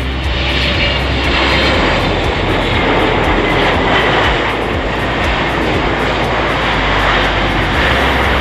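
Jet engines of a Boeing 777-200 airliner, a loud, steady rush of noise, as it touches down about four seconds in and rolls out along the runway.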